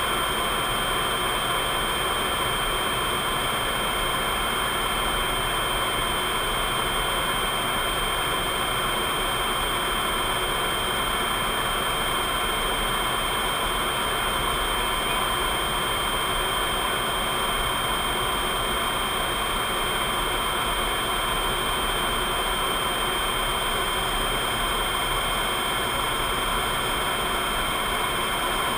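Steady rush of jet engine and airflow noise heard inside a jet cockpit in cruising flight, with a few faint steady whines over it.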